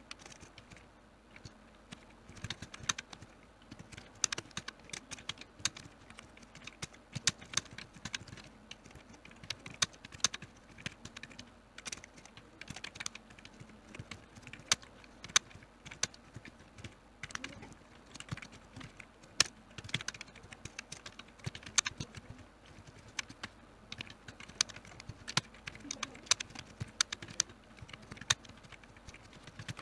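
Computer keyboard typing: a steady stream of irregular key clicks, several a second, with an occasional louder keystroke.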